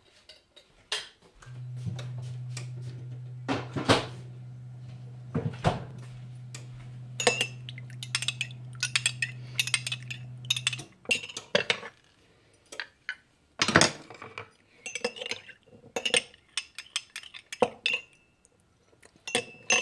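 Metal spoon stirring liquid in a small glass cup, clinking and tapping against the glass at irregular intervals. A steady low hum runs under the clinks from a second or two in until about eleven seconds.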